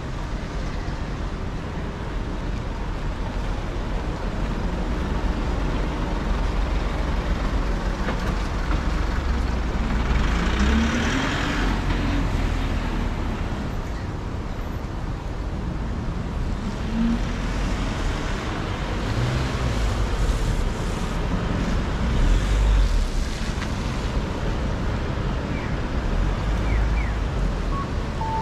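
Road traffic on a city street: a steady hum of cars and trucks going by, with one vehicle passing loudest about ten seconds in. A few short high beeps sound near the end.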